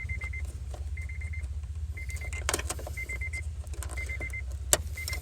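Car warning chime: a quick run of about five high beeps, repeating once a second over a steady low hum. A few clicks of handling, one sharp click near the end.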